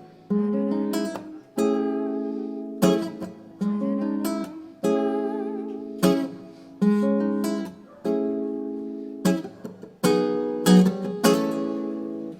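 Acoustic guitar strumming chords in a steady pattern, about one chord a second, each ringing out and fading before the next.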